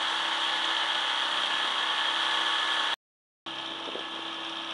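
Small boat's outboard motor running steadily under way, a continuous engine drone with a few steady tones in it. About three seconds in the sound cuts out dead for half a second, then returns as a quieter steady engine hum.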